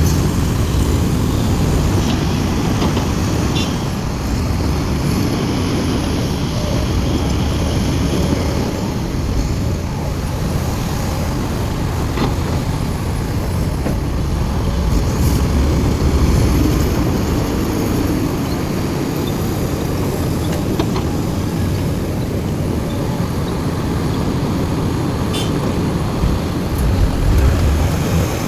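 Heavy diesel engine of a large excavator running steadily under load while it works, with a few sharp knocks at intervals.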